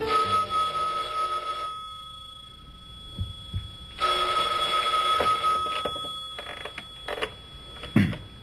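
Desk telephone bell ringing twice, each ring about two seconds long with a pause between. Near the end the handset is lifted from its cradle with clicks and a knock.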